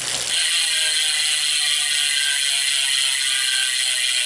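Prime carbon rear wheel's ratchet hub, fitted with a 36-tooth ratchet, freewheeling as the wheel coasts: a steady, fast buzz of ratchet clicks.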